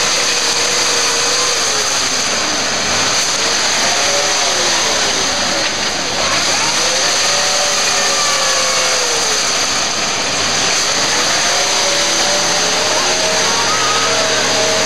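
Classic Range Rover engine revving up and down again and again as the vehicle struggles through deep mud, bogged in the ruts.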